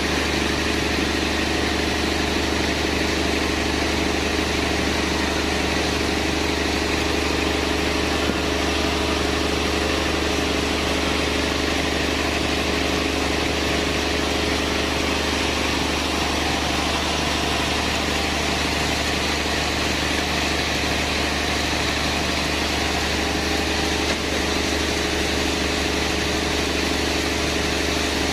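Sawmill machinery running steadily: a constant, even engine-like hum with a deep drone and steady higher tones, no cuts or impacts standing out.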